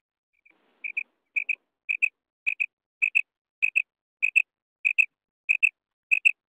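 Female common quail calling: a clear double note, repeated steadily about every half second and a bit, in a run of about ten pairs that begins about a second in.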